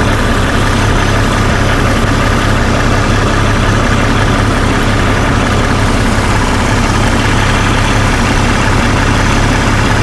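A 2001 Jeep Grand Cherokee's 4.0L straight-six idling steadily, heard close up with the hood open.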